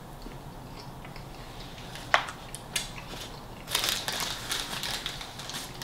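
A small paper gravy pot set down on the table with a sharp tap about two seconds in, then paper sandwich wrapping crinkling and rustling as food is handled on it through the last two seconds.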